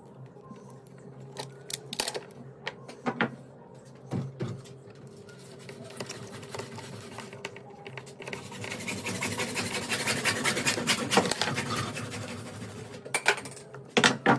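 Handling noise: scattered clicks and knocks, then about four seconds of fast, fine crackling and scratching, and a few sharp clicks near the end.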